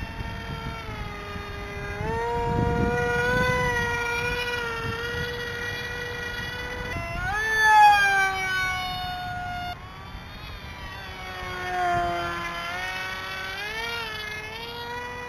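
Electric motor and propeller of a radio-controlled foam MiG-29 jet model, a steady high whine during low fly-bys. The pitch drops sharply as the plane passes close about eight seconds in, the loudest moment. A second, smaller rise and fall in pitch comes around twelve seconds.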